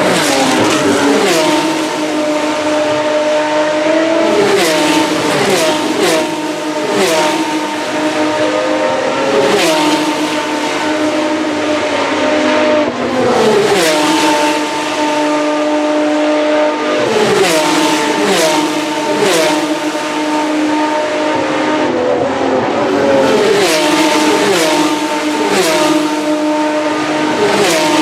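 Single-seater racing cars with V6 engines coming past one after another, about six times. On each pass the engine note drops in steps with sharp cracks, as the cars brake and downshift, while others hold steady revs in the distance.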